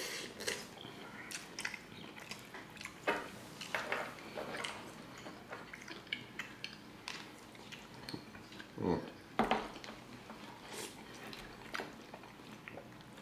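Close-miked eating: chewing and mouth noises of two people eating cabbage, with forks clicking and scraping against small bowls in scattered, irregular taps.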